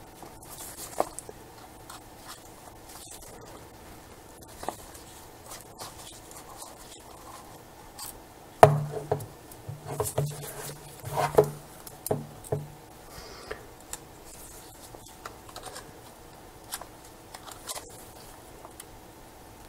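Small clicks and scrapes of a screwdriver and hands working on the partly dismantled barrel of a Sigma 10-20mm lens, with a cluster of louder knocks and clicks between about nine and thirteen seconds in.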